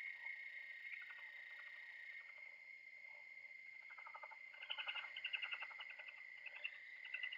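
Faint playback of the audio files being analysed: a steady high tone with bursts of rapid chirping pulses, loudest about halfway through.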